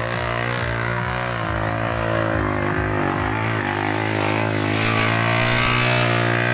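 Small single-cylinder motorcycle engine running under load as it climbs a steep muddy slope, its pitch wavering slightly and growing a little louder as it comes close.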